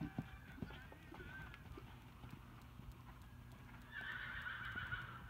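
A horse whinnying, one quavering call of about a second starting about four seconds in, over the soft thuds of hooves cantering on sand.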